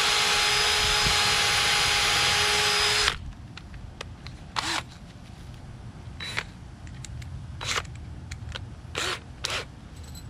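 DeWalt DCD771 20V cordless drill/driver running steadily at high speed, pre-drilling a pilot hole in a pressure-treated 2x4 so that a 4-inch screw won't split it. It stops suddenly about three seconds in, and a few short, fainter sounds follow.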